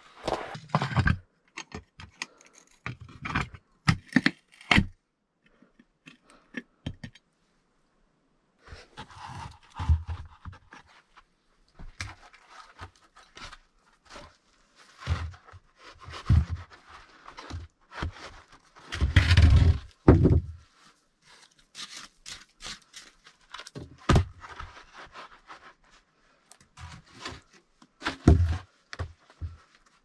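Scuffing on a sandy earth floor, then rough wooden boards set down and slid into place on the floor, with scrapes and wooden knocks coming in separate short bursts. The loudest and longest scrape comes about two-thirds of the way through.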